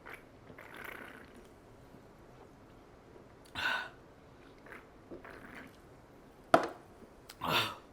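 A woman burping from a carbonated soda she has just chugged: a short burp about three and a half seconds in, then a sharp click and a longer, louder burp near the end.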